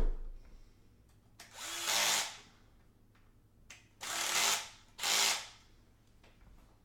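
Cordless drill driving screws in three short runs, the first starting about a second and a half in and the last two close together near the end, after a knock right at the start.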